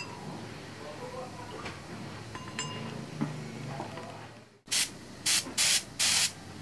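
A few light clinks of a metal spoon against the metal cup of a gravity-feed spray gun. Then, near the end, four short hisses in quick succession as the spray gun is triggered, blowing compressed air and sealer. The hisses are the loudest sound.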